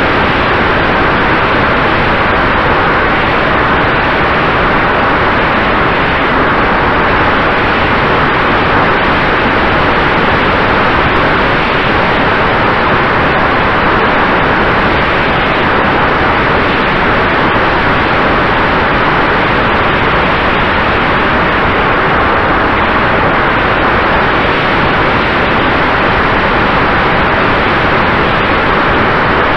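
Steady loud rushing noise of air streaming past a model plane's onboard FPV camera in flight, with a faint steady tone underneath.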